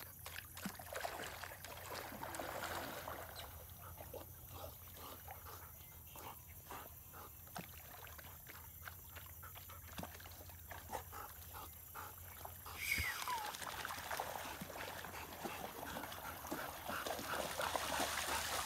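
Faint sloshing and small splashes of water as two Labrador retrievers wade in a pond, with a short falling whine about 13 seconds in. The splashing grows louder over the last few seconds as the dogs run through the shallows.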